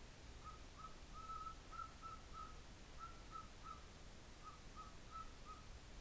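Cockatiel giving a run of faint, short calls, all at about the same pitch, in three quick groups of three to six notes starting about half a second in.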